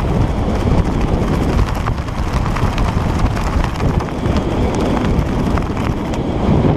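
Wind buffeting a skydiver's camera microphone during descent under an open parachute canopy: a loud, steady rush full of small crackles.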